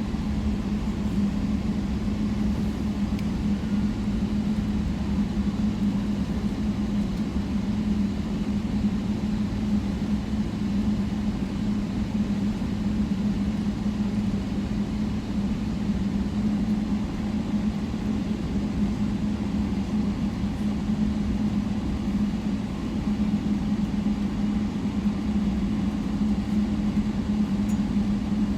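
Steady vehicle engine drone heard from inside the vehicle, with a low steady hum that does not change.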